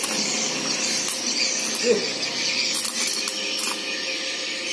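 Stick (arc) welding on a motorcycle frame: the electrode's arc gives a steady, continuous crackling hiss.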